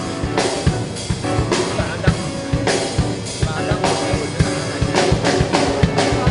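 Band music with a steady drum-kit beat: kick and snare hits over sustained instruments.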